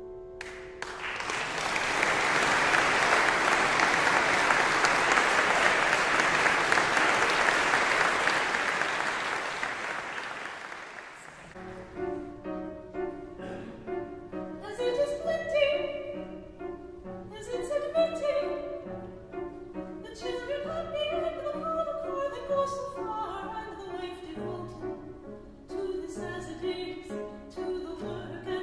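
Audience applause that swells just after a piano piece ends and dies away over about ten seconds. Then a piano begins accompanying a classical singer in an operatic style.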